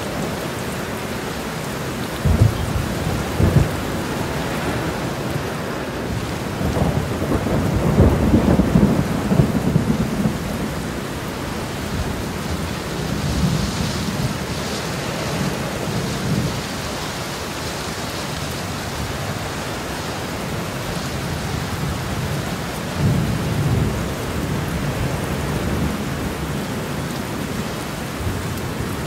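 Steady rain with thunder: two sudden claps a couple of seconds in, a long rolling rumble around eight to ten seconds, and quieter rumbles later on.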